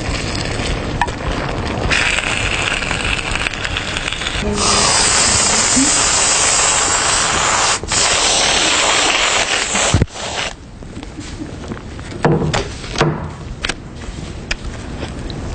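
A loud, steady hissing spray that lasts several seconds, with a brief break near the middle, cuts off and gives way to scattered soft rustles and clicks.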